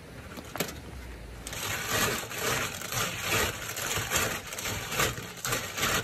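Wet clams being scrubbed against each other by hand in a steel bowl, the shells clattering and grinding in repeated strokes about twice a second. The scrubbing starts suddenly a second and a half in, after a single stone click.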